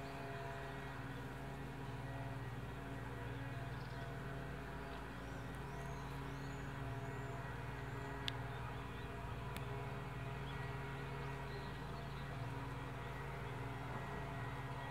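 Steady low mechanical hum made of several constant tones, with a few faint high chirps around the middle and one sharp click a little past halfway.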